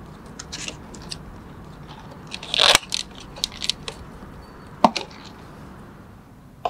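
A clear plastic cup of iced coffee being handled: scattered clicks and light knocks of plastic and ice, with a louder crinkling rustle about two and a half seconds in and a sharp click near five seconds.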